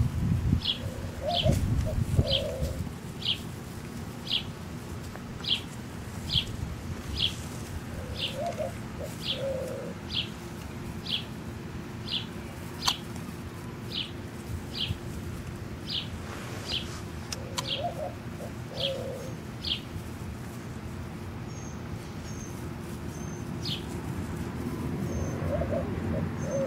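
Birds calling outdoors: one bird repeats a short high chirp about every second, while a dove coos in low two-note phrases about every eight seconds. Some low rustling is heard in the first couple of seconds.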